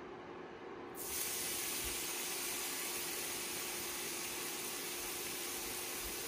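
A raw steak goes into a hot, greased cast-iron skillet about a second in and sizzles steadily.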